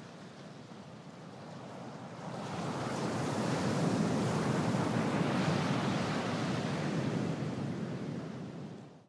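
Ocean waves surging in: a wash of surf that swells about two seconds in and fades away near the end.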